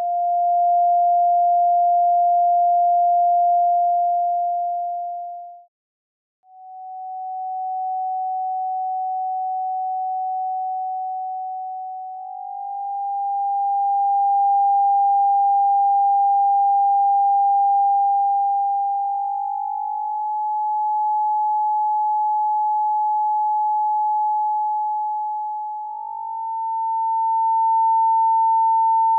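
Electronic pure sine tones, one steady tone at a time, stepping up in pitch in four or five stages with a short break near the start; tones generated from EEG readings for cymatics.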